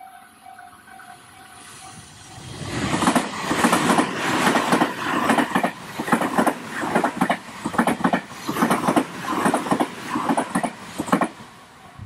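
Electric commuter train passing close by, its wheels clacking over the rail joints in a long run of beats. Before it arrives about two and a half seconds in, the level-crossing bell dings faintly. The train noise falls away near the end.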